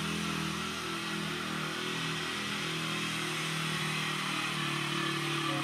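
A small dirt bike's engine running steadily as it is ridden, its pitch wavering slightly up and down.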